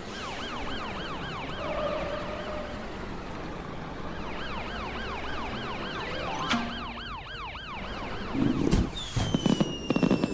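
Cartoon ambulance siren wailing, rising and falling about three times a second. About eight seconds in it gives way to a string of loud bangs and a falling whistle, a fireworks-style effect.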